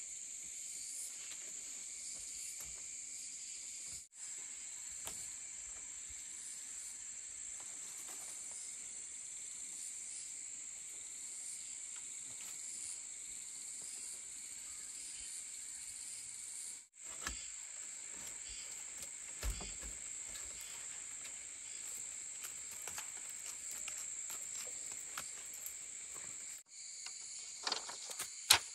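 Steady, high-pitched chorus of insects trilling, with brief dropouts three times. A few light knocks are heard, the sharpest near the end.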